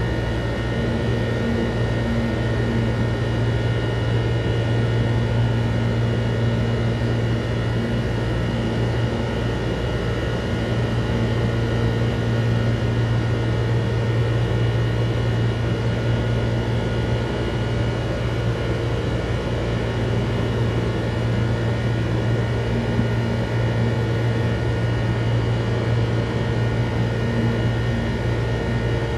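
Steady machine hum: a strong low drone with several constant high tones over it, and a fainter mid tone that fades in and out.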